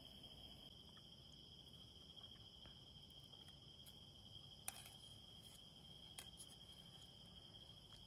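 Faint, steady high-pitched trilling of insects, with two light metal clicks of a fork against the aluminium camping pots, the first about halfway through and the second a second and a half later.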